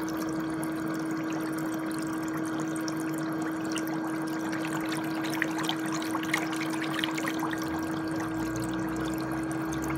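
Electric foot spa running: its bubble jets churn and pop in the water over a steady motor hum.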